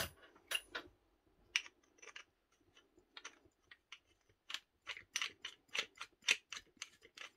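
Faint clicks and taps as a black plastic side handle is turned by hand into the metal gear housing of a Makita 8410BV drill. The clicks are sparse at first and come about three a second in the second half.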